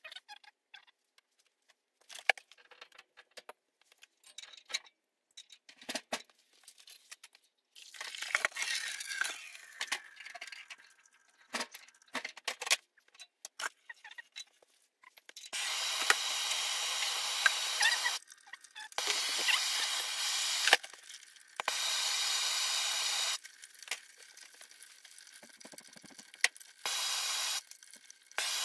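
Soldering torch hissing steadily in several bursts of two to three seconds each, cut on and off, while a ball valve is sweated into copper boiler piping; before that, scattered clicks and knocks of handling tools and pipe.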